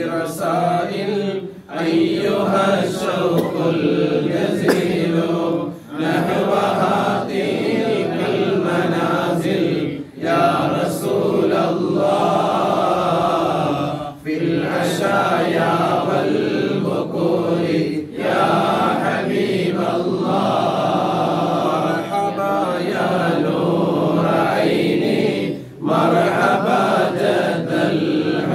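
A group of men chanting Arabic mawlid verses in praise of the Prophet together, one reading the text from a booklet. They sing line by line, with a short breath pause about every four seconds.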